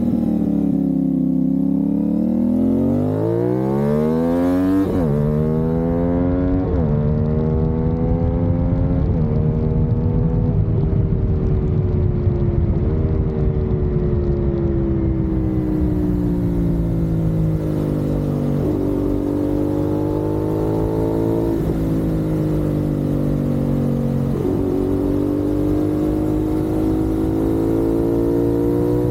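CFMoto 450SS parallel-twin motorcycle engine under way. The revs climb steeply for the first few seconds, then the pitch falls slowly and jumps up sharply several times, as when changing down through the gears. Wind rushes over the microphone at times.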